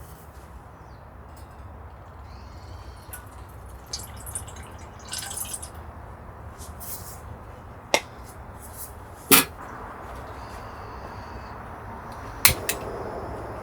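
A few sharp knocks and clicks, the loudest about nine seconds in and another near the end, over a steady low background noise, typical of handling cookware while cooking.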